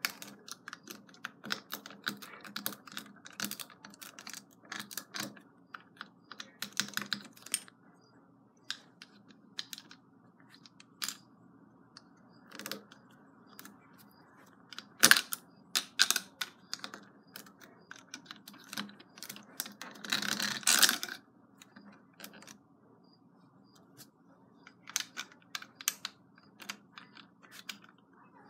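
Plastic LEGO bricks clicking and tapping as they are picked from a loose pile and pressed onto a brick wall on a baseplate. Irregular small clicks, with a longer rattle of bricks about two-thirds of the way through.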